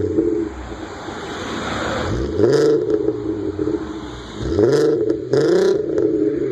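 Volkswagen Golf engine idling and revved three times in quick throttle blips. Each rev climbs sharply in pitch and drops back to idle: about two seconds in, again near four and a half seconds, and once more soon after.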